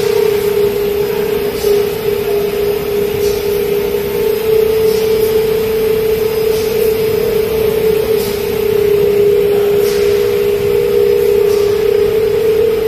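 Steady machine hum of a candy production line: one constant, loud tone with a faint tick about every one and a half seconds.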